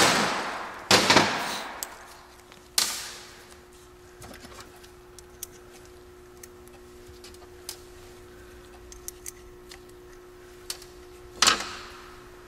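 Metal clacks of a Lisle valve keeper installer tool being pushed down onto the valve spring retainers of a Honda cylinder head, compressing each spring and snapping the keepers into place. A sharp clack at the start and another about a second in, a lighter one near three seconds, small ticks between, and another sharp clack near the end, over a steady low hum.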